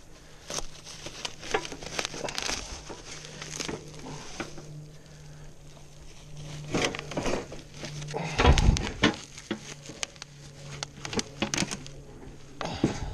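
Scattered clinks, knocks and rustling as loose steel parts of a wood chipper are handled and unpacked, with one heavy thud about eight and a half seconds in. A faint steady low hum runs underneath.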